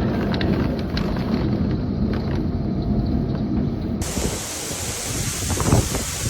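Thunderstorm sounds: a heavy low rumble for about four seconds, then, after an abrupt change, a steady hiss of heavy rain and wind, with a few low thumps near the end.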